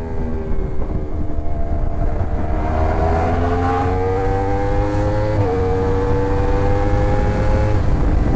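Yamaha R1's inline-four engine under acceleration, its pitch climbing through the revs, then dropping sharply at an upshift about five and a half seconds in and climbing again before easing off near the end. Wind rumble on the microphone underneath.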